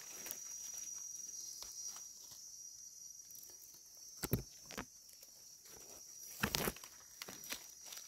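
Dry leaf litter rustling and crackling under a hand, in short bursts about four seconds in and again about six and a half seconds in, over a steady high-pitched drone of forest insects.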